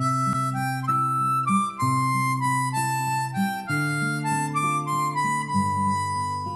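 Instrumental background music: a single melody of held, stepping notes over a steady low accompaniment.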